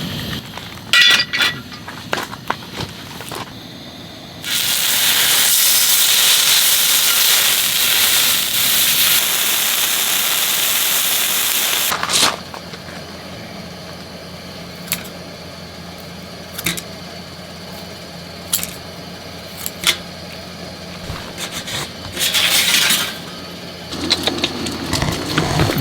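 A strong steady hiss that starts suddenly about four seconds in and cuts off about seven seconds later, with scattered small clinks and knocks before and after it and a second, shorter hiss near the end.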